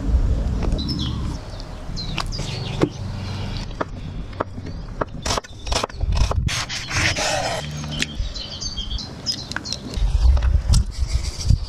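Close-miked food-prep sounds: raw chicken thigh pieces rubbed and pressed in a flour dredge, then a knife chopping shallot on a wooden board in a quick run of sharp strikes about halfway through. Near the end there are low, soft handling sounds as crumbled blue cheese is dropped into a wooden bowl of sauce.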